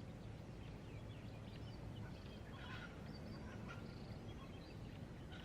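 Faint scattered bird calls, short chirps over a low steady background hum.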